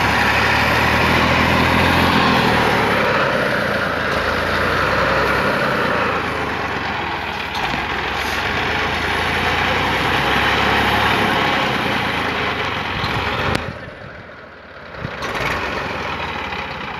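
Tractor diesel engine running hard, revving up in the first few seconds, while the tractors work to pull a bogged tractor out of mud. About three-quarters of the way through, the sound drops away suddenly for a second or so, then returns.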